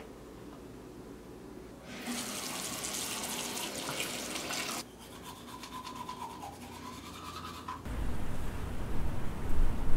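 A bathroom tap running into a sink with a steady hiss, then a few seconds of quick scrubbing strokes like teeth being brushed. Near the end a loud low outdoor rumble begins.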